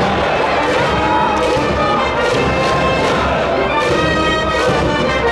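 A school brass band playing a cheering song in the stands, trumpets and trombones carrying the tune over a steady bass drum beat.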